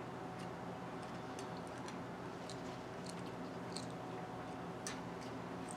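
Faint, irregular light clicks and taps of small metal carburetor parts being handled and taken apart, over a steady low hum.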